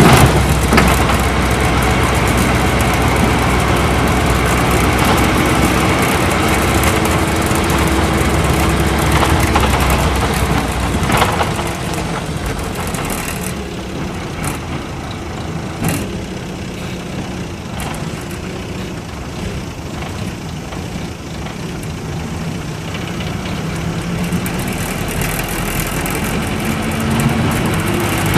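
Isuzu Cubic city bus's V8 diesel engine pulling under load while the bus drives, heard from inside the cabin. About twelve seconds in the engine note drops and quietens, with a few knocks and rattles, then builds again near the end.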